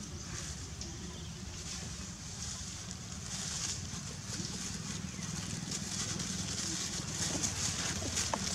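Dry leaf litter crackling and rustling in quick irregular ticks as the monkeys shift on the ground, more busily in the second half, over a steady low rumble.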